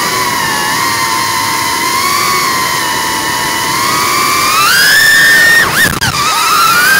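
FPV quadcopter's brushless motors whining at a steady pitch, rising as the throttle goes up about four and a half seconds in. Near six seconds the whine drops sharply and swoops back up, a throttle chop as the quad tips over into a dive.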